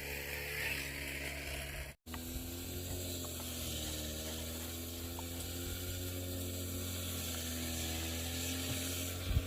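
An engine running steadily, its pitch drifting slightly up and down. The sound cuts out for an instant about two seconds in.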